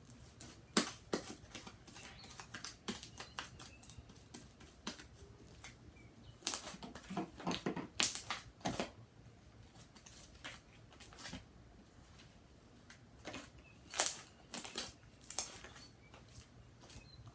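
Slime being squished and kneaded by hand, making irregular sticky clicks and pops in clusters.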